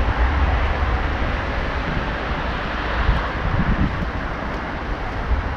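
Wind noise on the microphone, a steady low rumble over an even outdoor hiss.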